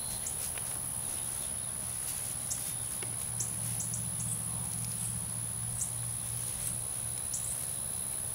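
Insects chirring in one steady high-pitched note over a low steady hum, with scattered faint clicks and short high chirps.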